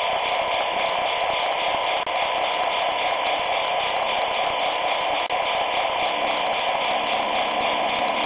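Steady, even hiss with no rhythm or change in pitch.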